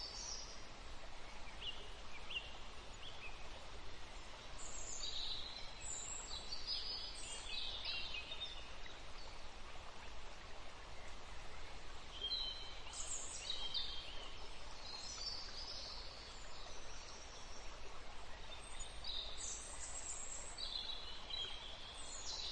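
Small birds chirping in short bursts every few seconds over a steady background hiss.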